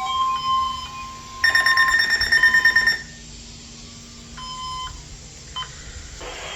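Several weather alert radios sounding their test alarms: a steady high tone dies away about a second in, then a loud, harsh pulsing buzzer sounds for about a second and a half, and a shorter, quieter beep follows near the end.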